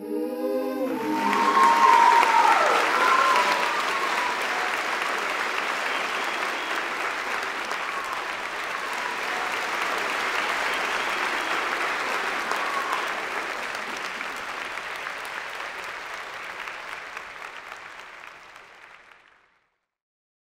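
Audience applauding, with a few cheers in the first seconds. The clapping is loudest about two seconds in, then slowly fades out near the end.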